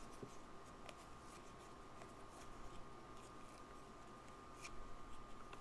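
Faint rustling and light clicks of glossy trading cards being slid off a stack one by one, over a faint steady tone.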